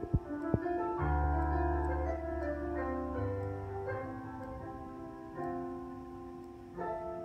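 Background music led by piano, with a deep bass line coming in about a second in.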